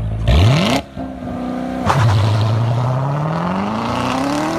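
Chevrolet Corvette C7's V8 revving hard as the car launches and pulls away. About two seconds in the pitch drops sharply at an upshift, then climbs steadily as the car keeps accelerating.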